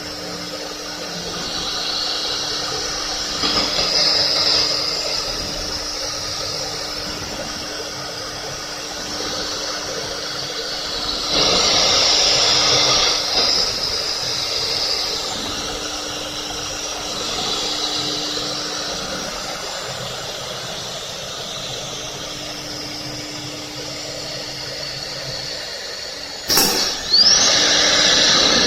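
CNC wood router with four pneumatic heads running: a steady spindle hum under a hiss of cutting noise, louder for about two seconds in the middle. A short, loud burst comes about two seconds before the end.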